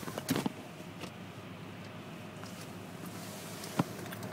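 Low, steady running noise of a car rolling slowly, heard from inside the cabin, with a few small clicks and knocks about half a second in and one sharp click shortly before the end.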